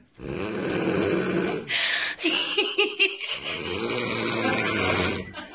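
A woman snoring loudly in long, heavy breaths, like a tractor, with a sharper snort about two seconds in followed by a brief fluttering stretch.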